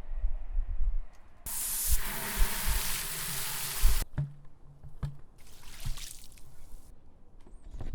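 Water running for about two and a half seconds, then a second, shorter and quieter rush, with a few sharp clicks and a low rumble.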